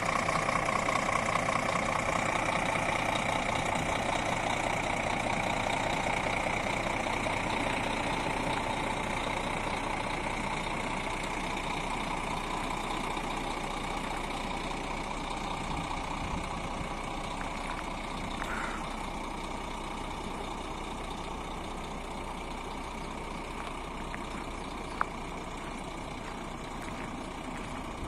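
Scania G 400 truck's six-cylinder diesel engine idling steadily, growing gradually quieter. A single sharp click near the end.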